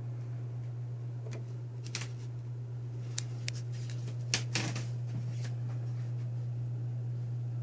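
Big plastic orange juice jug burping: a handful of sharp little pops and clicks scattered through the middle, with a louder cluster about four and a half seconds in. A steady low hum runs underneath.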